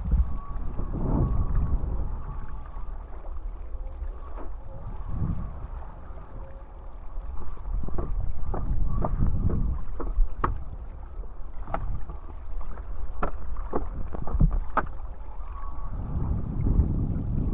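Wind buffeting the microphone and water rushing past during a downwind hydrofoil board run, with a string of sharp water slaps or splashes between about eight and fifteen seconds in.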